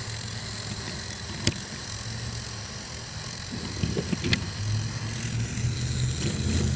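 Battery-operated toy Thomas engine's small electric motor running with a steady low hum as it pushes two wooden cars along wooden track. There are two sharp clicks, and the hum grows louder near the end.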